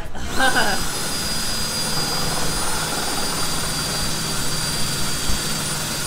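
Cordless drill running steadily at full speed, its bit grinding slowly into the metal skin and foam wall of a drinks cooler, with a steady high whine starting a moment in. The slow going is put down to a bit too blunt at the point.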